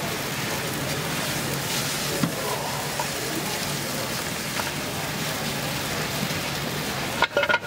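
Pad thai rice noodles, chicken and egg sizzling steadily in a hot wok over a gas burner while being tossed with tongs, with occasional light clicks of the tongs against the pan. A few louder clacks come near the end.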